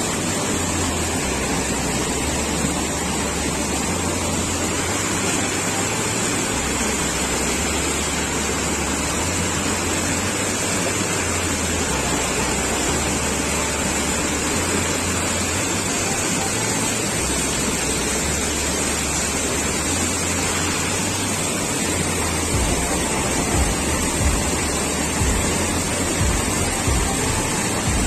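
Waterfall: a steady, even rush of falling water, with a few low rumbling bumps near the end.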